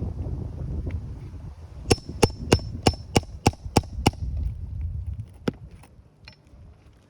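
A hammer striking a metal roofing tool, about eight quick sharp blows over two seconds with a metallic ring, then a couple of lighter taps. Wind rumble on the microphone comes before the blows.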